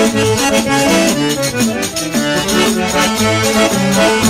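Instrumental break of a gaúcho folk song led by accordion, with a steady bass line and rhythm under it.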